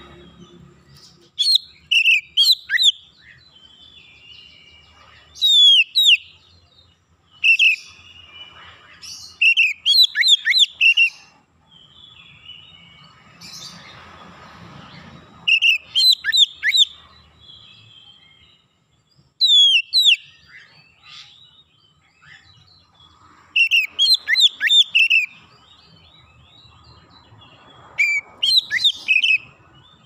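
Oriental magpie-robin (kacer) singing: about eight short, loud phrases of clear, quickly falling whistled notes, one every few seconds, with pauses between.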